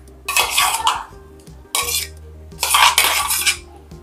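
Metal spoon scraping and clinking against a stainless steel mixer jar as thick ground tender coconut paste is emptied into a steel pan of milk, in three spells of scraping, the longest near the end. Soft background music runs underneath.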